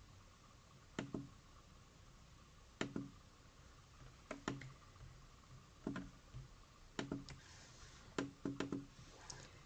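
Computer mouse clicking: sharp, faint clicks at irregular intervals about a second apart, several coming in quick press-and-release pairs.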